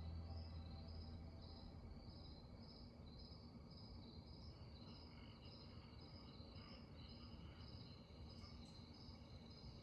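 Near silence, with faint high chirping repeating about twice a second, like crickets.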